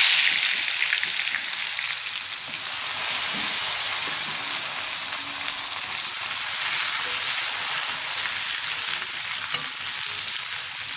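Marinated tempe slices deep-frying in hot oil in a wok: loudest right at the start, just after they go in, then settling into a steady crackling sizzle.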